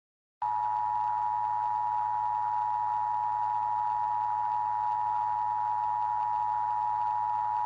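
Emergency Alert System attention signal: a steady two-tone alert of two pitches sounding together, starting about half a second in and held unbroken, with a faint hiss and a low hum under it. It is the signal that an emergency alert message is about to follow.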